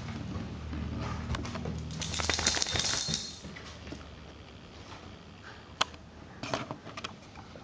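Scuffling of a puppy and a larger dog play-fighting right at the microphone: rustling and rubbing with a louder burst about two seconds in, then a few sharp clicks near the end.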